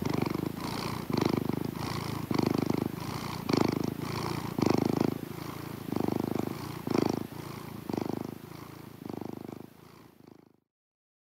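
Domestic cat purring close up, the purr swelling and easing about once a second with its breathing, then fading out near the end.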